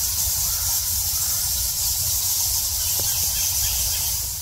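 A huge colony of Geoffroy's rousette fruit bats squeaking and chittering in a cave, a dense, continuous high-pitched din of countless overlapping calls.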